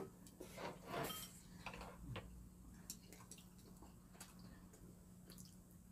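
Faint eating sounds at a table: chopsticks and spoons clicking lightly against ceramic bowls, with soft mouth sounds of eating about a second in, over a low steady hum.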